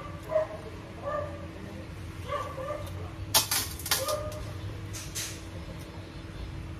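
Short, high whimpering yips like a small dog's, several times. A brief burst of sharp, scratchy clicks a little after three seconds in is the loudest sound.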